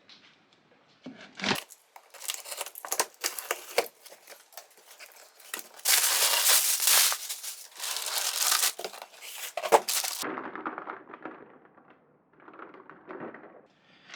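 A model kit box being opened by hand: packaging rustling, crinkling and tearing, loudest in a dense stretch from about six to ten seconds in, then quieter handling.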